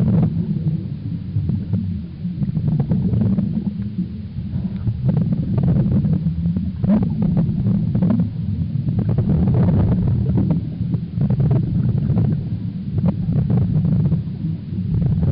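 Muffled underwater rumble picked up by a camera in an underwater housing during a scuba dive, with bursts of crackling bubbles from the diver's exhaled breath every few seconds.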